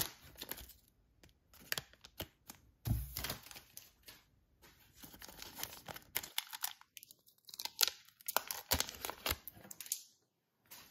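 Foil wrapper of a trading-card pack being torn open and crinkled by hand, in several short spells of crackling with brief pauses between them.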